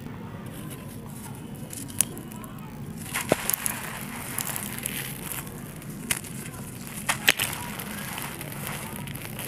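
Dry lumps of sand and charcoal ash crumbling in bare hands, grit pouring and pattering down, with a few sharp crackling snaps as the chunks break, the loudest about three and seven seconds in.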